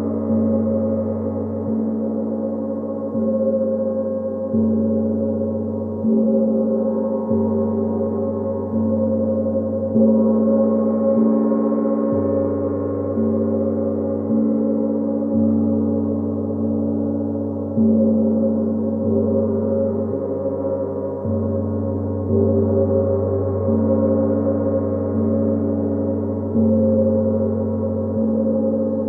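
Gong struck steadily about once every one and a half seconds, each stroke ringing on under the next, with deep low tones and a shimmer of higher overtones.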